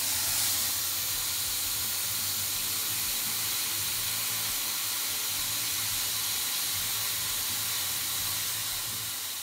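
Small handheld cut-off grinder with a thin abrasive wheel cutting through steel bar: a steady, high hissing grind that eases off slightly near the end.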